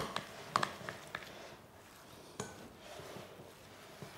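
Metal spoon stirring ricotta and sugar in a glass bowl: a handful of light, irregular clicks of the spoon against the glass over a quiet background.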